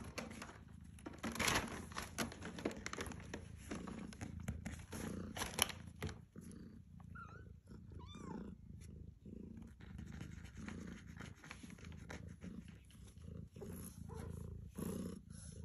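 Lykoi cat purring steadily while being stroked, with sharp rustling and handling noises on top, loudest about a second and a half and five and a half seconds in. A few faint high squeaky glides come about seven to eight seconds in.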